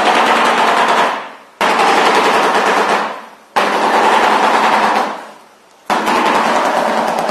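Shoebill clattering its bill: very rapid knocking in four bursts, each about a second and a half long, with short pauses between.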